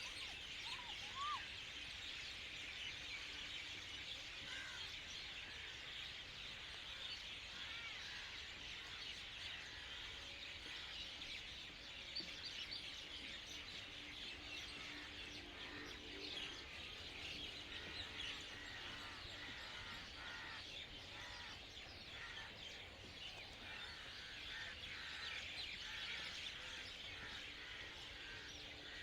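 Many small birds chirping together in a dense, continuous chorus of short high chirps.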